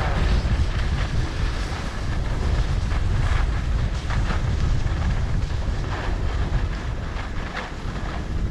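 Wind buffeting the microphone as a skier heads downhill, a heavy steady rumble, with the hiss of skis running over packed snow and a few short edge scrapes.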